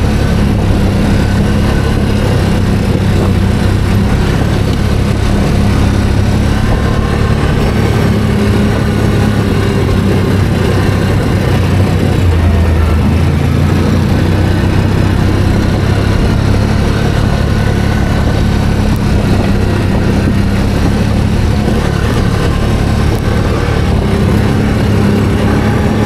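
ATV (quad bike) engine running steadily while riding, a constant drone whose pitch shifts a little with the throttle.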